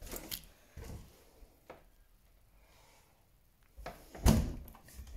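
Old white panelled wooden door being handled and opened: a few light knocks and clicks from the knob and latch, then a sharp, louder knock with a low thud about four seconds in.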